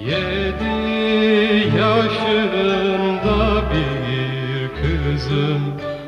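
Background music: a song, with a voice holding long wavering notes over a plucked-string accompaniment.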